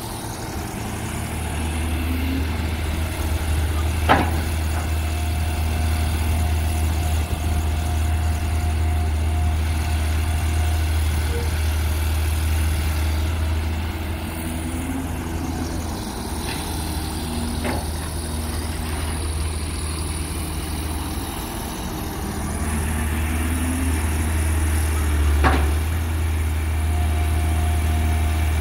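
Caterpillar tracked excavator's diesel engine running steadily with a deep drone while it digs soil, its note rising a few times as the machine takes load. Three sharp knocks stand out, about 4, 17 and 25 seconds in.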